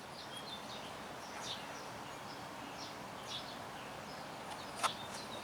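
Outdoor background with birds chirping, short high calls scattered throughout, and one sharp click near the end.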